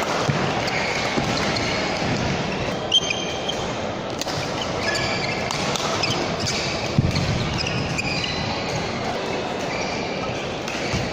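Badminton play in an indoor hall: sneakers squeaking on the court floor, with a few sharp racket-on-shuttlecock hits, over the hall's steady background murmur.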